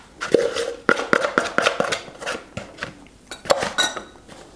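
A spoon knocking and scraping against a mixing bowl while thick peanut butter ball dough is pressed together: an irregular run of clinks and knocks, busiest in the first two seconds, with one louder knock past the middle.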